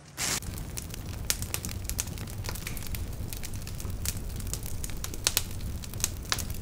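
Large log campfire burning, crackling with frequent sharp pops and snaps over a steady low rumble.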